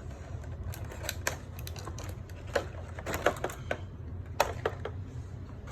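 Irregular clicks and taps of doll packaging being handled while a tie holding the doll is worked free, over a steady low hum.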